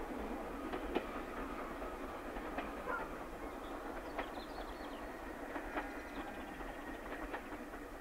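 LNER K1 2-6-0 steam locomotive 62005 and its train running away into the distance: a steady rail rumble with occasional clicks of wheels over rail joints, slowly fading.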